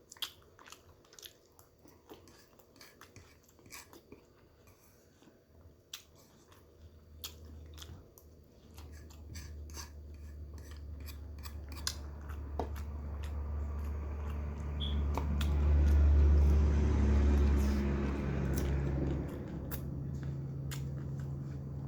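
Close-up chewing and biting with sharp mouth clicks, as steak and salad are eaten. From about a third of the way in a low rumble builds up, is loudest a little past the middle, and settles into a steady low hum.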